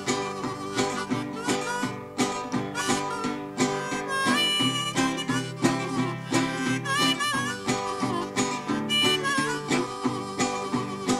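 Country blues instrumental break: a harmonica wails sustained, bending notes over a guitar picked in a steady rhythm.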